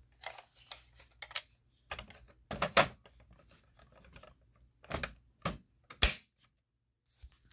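Irregular plastic clicks and taps from handling a Gillette Captain Kelly model 929 smoke alarm and pressing its test button, with no alarm sounding.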